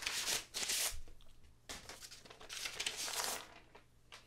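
A vinyl LP being slid out of its cardboard jacket and paper inner sleeve, a papery rustling and sliding. There is a short rustle at the start, then a longer one from about a second and a half in.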